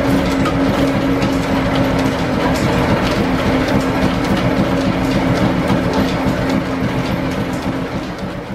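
1925 American 18-inch lathe drilling a bore with a large Morse-taper twist drill in the tailstock: the machine runs steadily with a held hum and a fast clatter, fading out near the end.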